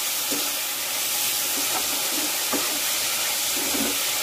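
Bitter gourd and canned tuna frying in a pan of oil: a steady sizzling hiss with occasional small pops.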